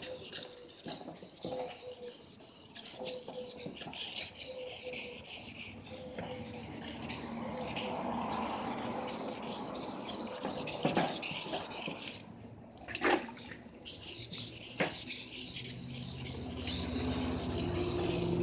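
Wet sanding of a hazy, yellowed plastic headlight lens by hand with 1000-grit sandpaper: a steady side-to-side rubbing scrape. A few sharp knocks come about eleven to fifteen seconds in.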